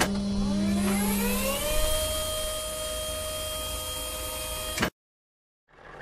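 Cartoon sound effect of a crane's motor: a mechanical whir that rises in pitch over the first second and a half, holds steady, then cuts off suddenly about five seconds in. After a short gap, a truck engine fades in near the end.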